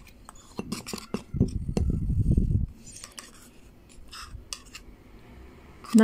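Knocks and scrapes of an electric spice grinder's plastic cup tapped against a small dish to empty out ground cloves. There is a dense run of knocks in the first couple of seconds, then scattered light clicks.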